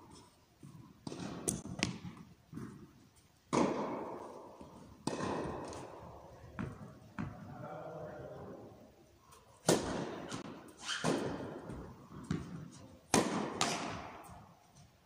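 Tennis ball impacts, the ball bouncing on the court and being struck by rackets, about ten sharp hits with three loudest. Each hit is followed by a long echo in the indoor tennis hall.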